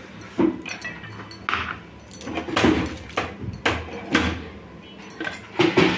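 Chana dal poured into an aluminium pressure cooker holding cubed bottle gourd and water, then a series of short rattles and metal clinks as the cooker is handled.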